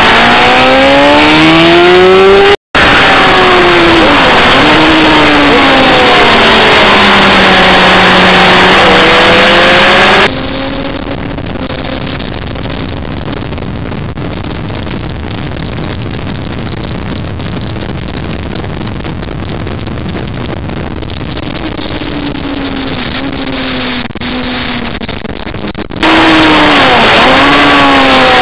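Engine of a vehicle being driven hard on a race circuit. Its pitch rises and falls as it accelerates, brakes and shifts gear. The sound cuts out for an instant about three seconds in, then for much of the middle it is quieter and muffled, and it comes back loud near the end.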